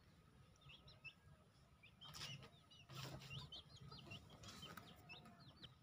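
Faint chirping of small birds, many short quick notes repeated throughout, with a few soft rustling noises over a quiet background.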